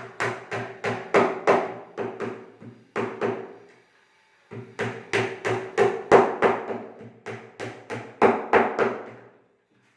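Hammer blows on a wooden table, about two to three strikes a second, with a short pause about four seconds in, stopping just before the end.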